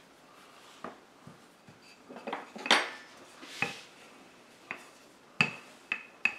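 Wooden rolling pin rolling out pie dough on a floured silicone mat: about ten sharp clacks and knocks, a few with a brief ring, with soft rolling noise between them.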